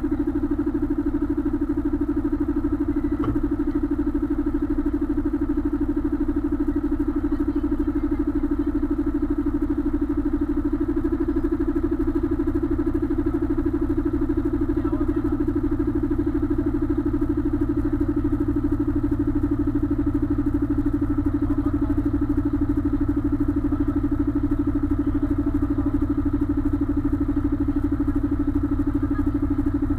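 Container prime mover's diesel engine idling steadily, with an even low throb under a constant hum.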